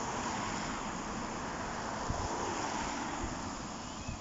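A steady rushing outdoor noise that swells over the first few seconds and eases toward the end, with a few low thumps of wind on the microphone.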